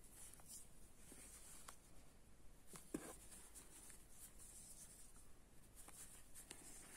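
Faint scratchy rustling of cotton yarn and a steel crochet hook working through crocheted stitches, with a few small ticks and one slightly louder click about three seconds in.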